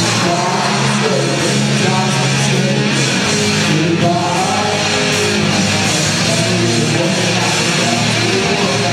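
Loud rock music with distorted electric guitar, playing steadily.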